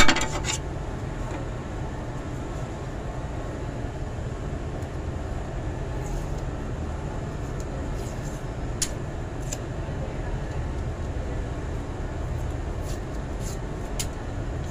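Steady low machinery rumble, with a short loud rasp right at the start as masking tape is pulled from its roll, and a few light clicks later on.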